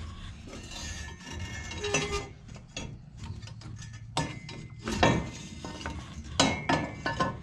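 Steel header tubes and flange pieces of a multi-piece long-tube header clinking and knocking as they are handled and offered up to the engine's exhaust ports, with scattered sharp clanks, the loudest about four and five seconds in and several more near the end.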